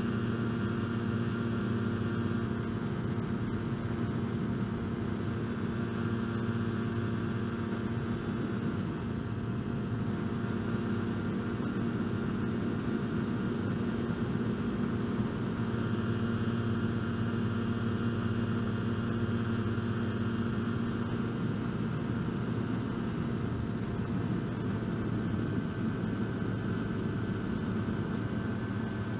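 Kolb Firefly ultralight's engine running steadily in cruise flight, a constant drone heard from the open cockpit.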